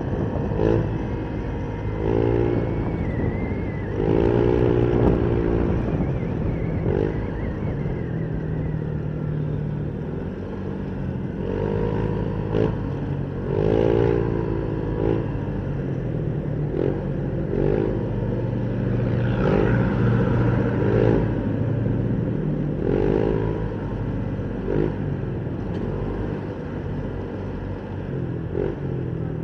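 Motorcycle engine running steadily while riding in traffic, picked up by a helmet-mounted external mic. Short wavering tones come in over the hum every second or two.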